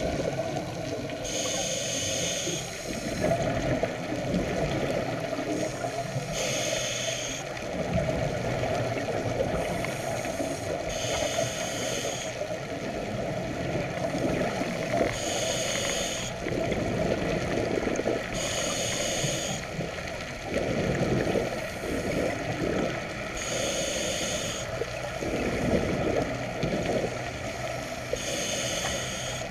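Scuba diver breathing through a regulator underwater: a hissing inhale about every four seconds, with the gurgle of exhaled bubbles in between.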